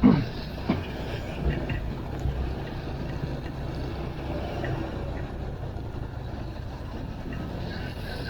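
Steady low rumble of a vehicle running, with a loud, short sound falling in pitch right at the start and a few faint knocks.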